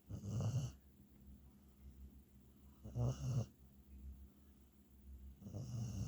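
A beagle snoring: three snores about three seconds apart, each lasting about half a second.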